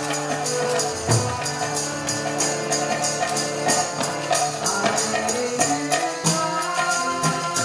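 Kirtan music: karatalas (small brass hand cymbals) clashing in a quick, steady rhythm over sustained harmonium chords, with a few low mridanga drum strokes. The chord changes about six seconds in.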